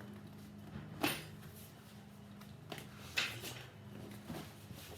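A box being handled: a sharp knock about a second in and another a couple of seconds later, with a few lighter clicks, over a low steady hum.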